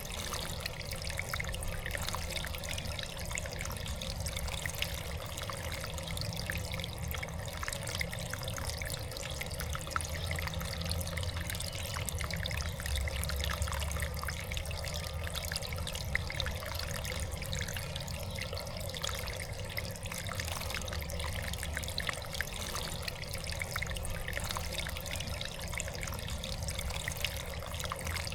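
Water trickling and splashing steadily in a backyard birdbath, a continuous patter of small drops over a low steady hum.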